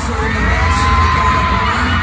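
Loud pop music with a heavy pulsing bass, with a crowd screaming and cheering over it.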